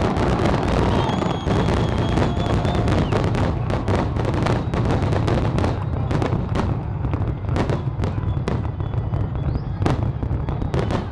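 Aerial fireworks display: a dense barrage of shell bursts, booming bangs and crackle over a constant low rumble, the bangs coming more separately in the second half.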